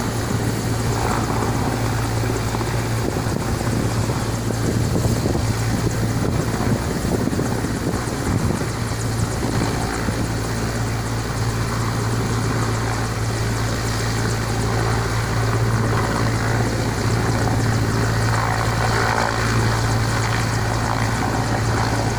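Military rescue helicopter running steadily, its rotor giving a strong, unbroken low hum over a wash of engine and rotor noise.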